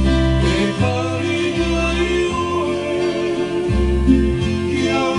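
Live Hawaiian song: a male voice singing in Hawaiian, accompanied by ukulele and guitar.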